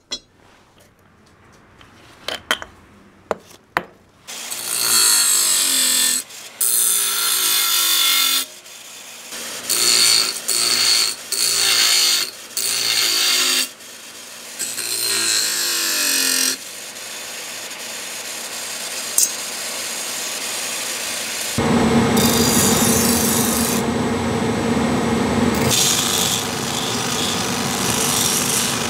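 Kitchen knife blade ground on a motor-driven grinding wheel: a few sharp clicks at first, then grinding in short strokes of a second or two with the blade lifted in between. About three-quarters of the way in it turns into louder, continuous grinding with a steady hum underneath.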